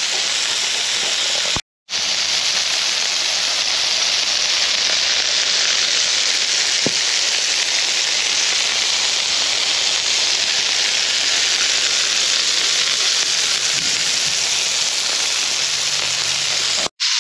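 Burger patties frying in oil in a large cast iron skillet: a steady, dense sizzle. The sound cuts out briefly about two seconds in and again near the end.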